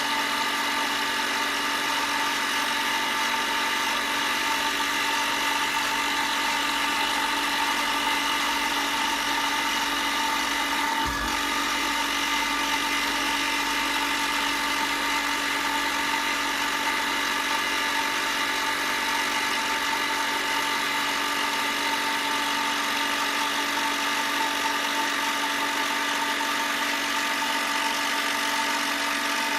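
A woodworking power tool's motor running steadily with an even, many-toned whine, working a pear-wood keyboard case side. There is one short low knock about eleven seconds in.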